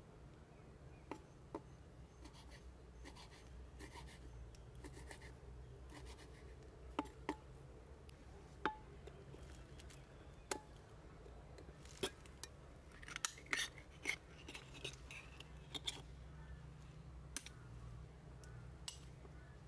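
Irregular light clicks and taps, a few sharper ones, over a low steady background hum, with a quick cluster of clicks around two-thirds of the way in.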